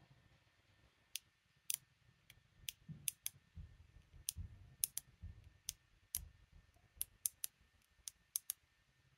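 Irregular sharp metal clicks, about twenty, with a few soft low knocks in the middle. A steel pick is working inside the brass plug of an ASSA Guideline lock cylinder.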